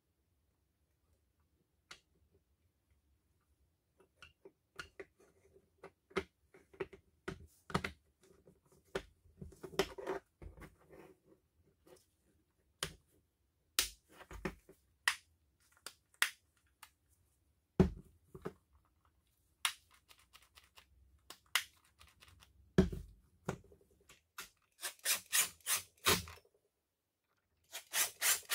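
Irregular clicks, taps and short scrapes of hand tools and small plastic and metal parts being handled on a workbench, with a quick run of clicks about two-thirds of the way in.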